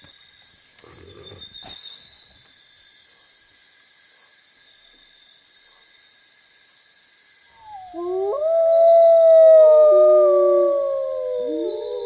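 Grey wolves howling in chorus: several long, overlapping howls that glide up and down, starting about seven and a half seconds in. Before that there is only a faint steady high-pitched hum.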